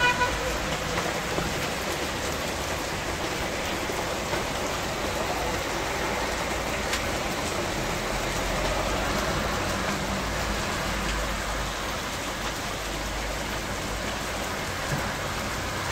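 Heavy rain mixed with hail pelting a paved street: a steady, even hiss of drops hitting the wet road, with faint scattered ticks.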